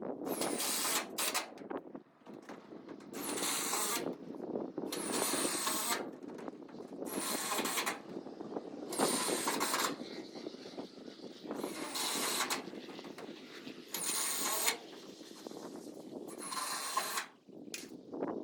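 Power drill driving screws into metal, in about ten short runs of under a second each, a second or two apart.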